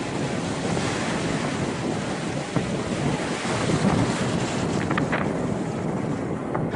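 Strong wind buffeting the microphone over small waves washing onto a beach.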